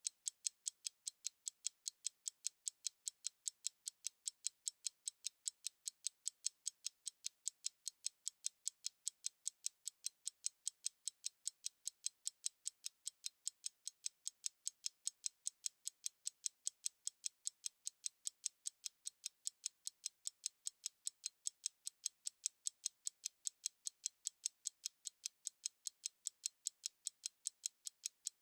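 Analog stopwatch ticking steadily and fast, about five sharp, light ticks a second.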